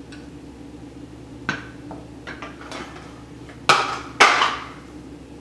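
A metal spoon clinking and tapping against glass bowls as flour is spooned out, a few light knocks and then two louder ones half a second apart.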